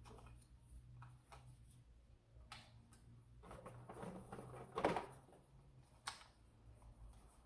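Quiet handling of a plastic foam-dart blaster and its magazines: scattered light clicks, a stretch of rattling, and a sharper knock about five seconds in.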